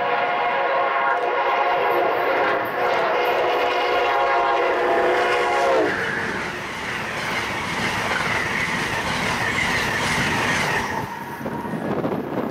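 Amtrak ACS-64 electric locomotive passing at speed, sounding one long steady horn blast whose pitch drops sharply just before six seconds in as the locomotive goes by. The rush and clatter of the passenger cars follows and fades near the end.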